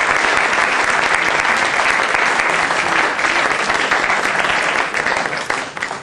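Audience applauding, dense and steady, dying down near the end.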